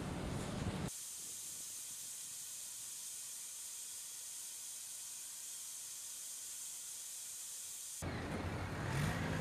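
A steady, thin high-pitched hiss with almost nothing underneath it. Wind and water noise fill the first second, and they come back about eight seconds in along with a low engine-like hum.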